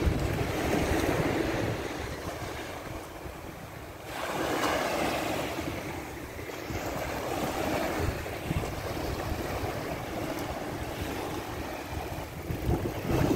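Small surf washing up the beach, with wind rushing over the microphone in gusts.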